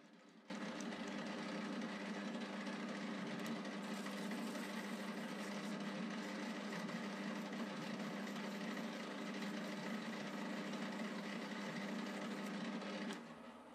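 Metal lathe running at a steady speed, a constant hum with a whine over it. It cuts in abruptly about half a second in and dies away shortly before the end.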